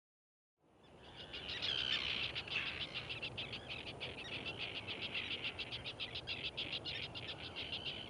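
A colony of terns calling: a dense run of short, sharp, high calls, about five a second, fading up from silence about a second in.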